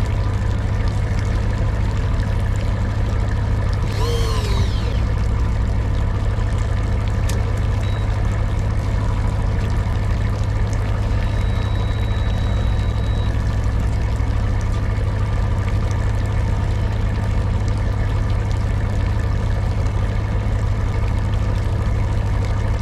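Boat engine running steadily, a constant low hum. A brief sound falling in pitch cuts in about four seconds in.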